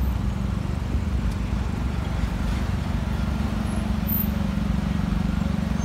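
Steady low rumble of a car's engine and road noise, heard from inside the car in city traffic.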